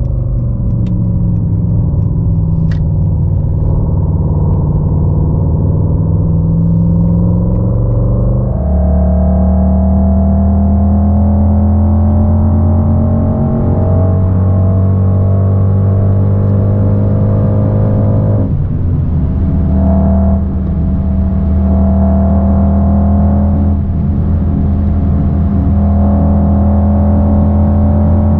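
Simulated Mercedes-AMG GT 63 S twin-turbo V8 engine and exhaust sound from an OBD2-linked phone app, played through the car's speakers and following the real engine's revs. The note sinks steadily for several seconds, then jumps louder and higher about a third of the way in, with a few brief dips later on.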